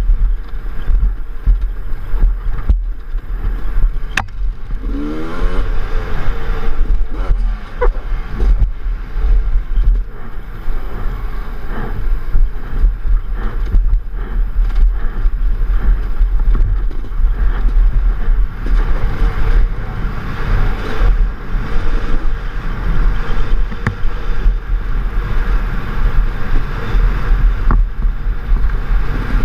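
Enduro dirt bike engine running over rough off-road terrain, heard from a first-person GoPro, with a heavy steady low rumble of wind and bumps on the microphone and a few sharp knocks.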